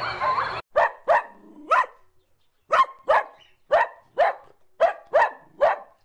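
A dog barking in short, sharp barks, about two a second, with a pause of nearly a second around two seconds in.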